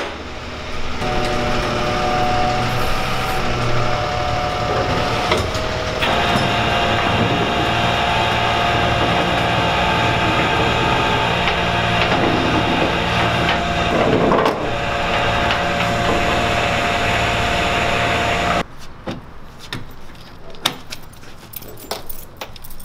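Flatbed tow truck running loud and steady with a constant whine, as its tilted bed lets a car down to the ground. The truck's sound cuts off abruptly near the end, leaving only a few light clicks and scrapes.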